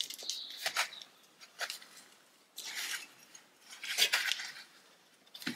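Thin sheet metal being handled and pressed around a curved metal bar to form a bracket. It gives scattered light metallic clicks and taps, with two longer scrapes around the middle.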